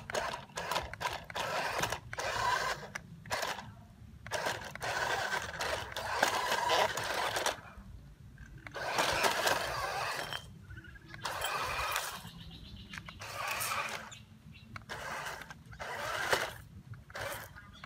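Small electric RC rock crawler's motor and gearbox whirring in stop-start bursts as the throttle is worked, towing a glass bottle over dirt and dry leaves.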